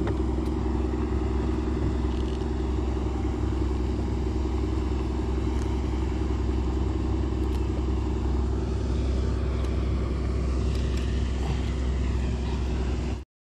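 A steady motor hum with a constant low rumble underneath, which cuts off abruptly near the end.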